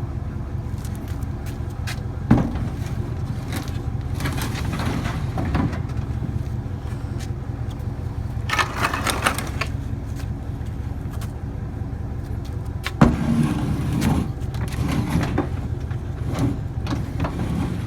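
Vehicle engine running steadily, with a sharp knock about two seconds in and another about thirteen seconds in.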